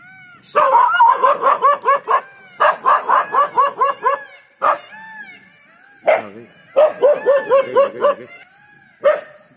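Dog barking defensively at a leopard hidden in the undergrowth: three quick runs of sharp barks, about five a second, with short pauses between them and a few single barks in the gaps and near the end.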